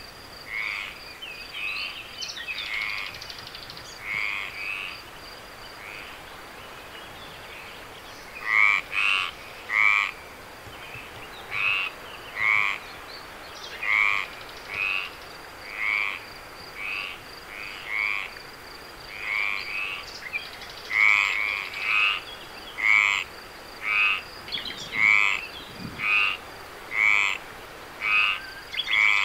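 Frogs croaking in short repeated calls, about one a second, pausing briefly and then coming louder and more regularly from about a third of the way in. A steady high insect trill runs underneath.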